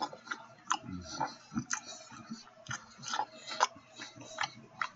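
Close-up chewing of a ribeye steak sandwich on a hoagie bun: irregular wet mouth smacks and clicks, a few a second.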